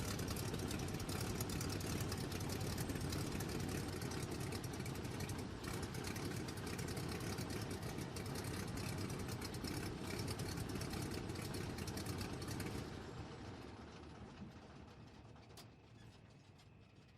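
Stearman biplane's radial engine idling with a steady, dense clatter, heard from the cockpit. It is shut off about 13 seconds in and its sound dies away over the next few seconds.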